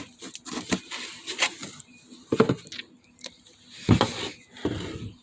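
Handling noise from a cordless rotary hammer being picked up and turned over: irregular light clicks and knocks of its plastic housing, with a heavier knock about four seconds in.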